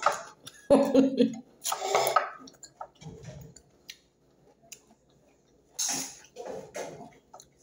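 A person's voice in a few short bursts, one of them noisier and cough-like, with faint small clicks and taps of eating by hand at the table in between.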